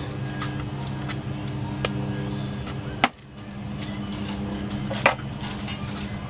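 A steady mechanical hum with sharp knocks about three seconds in and about five seconds in. The hum drops briefly after the first knock and comes back within a second.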